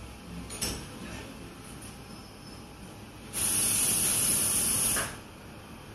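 Espresso machine steam wand hissing in one loud burst of about a second and a half, starting about three seconds in and cutting off sharply, over the low background noise of a café.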